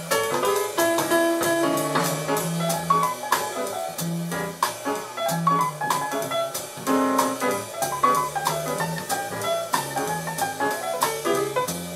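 Jazz music played back on a TEAC A-4010GSL reel-to-reel tape deck.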